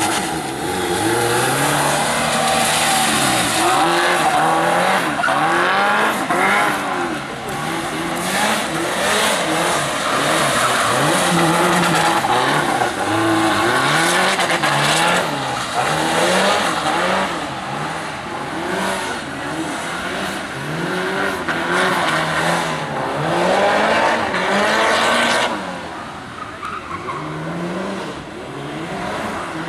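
A car engine revving hard, its pitch climbing and dropping every second or two as the car accelerates and brakes through a tight cone course, with tyre noise on wet asphalt. It grows quieter over the last few seconds as the car moves away.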